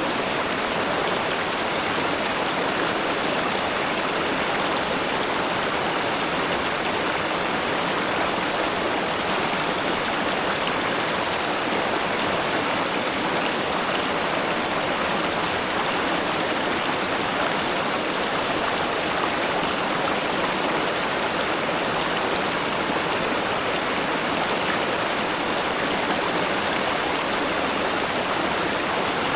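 Spring-fed river water flowing steadily: an even, unbroken wash of running-water noise.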